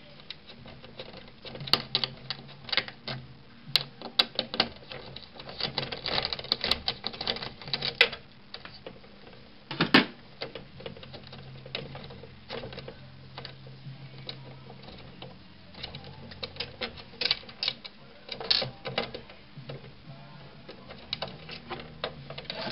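Irregular light clicks and taps of hand tools against a circuit board while a capacitor is worked off it, the sharpest knock about ten seconds in, over a faint steady low hum.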